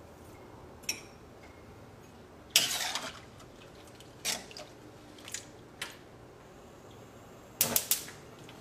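Metal slotted spoon stirring a thick vegetable curry in a stainless steel pan, scraping and clinking against the pan in a handful of separate strokes. The loudest stroke comes about two and a half seconds in, and a quick cluster comes near the end.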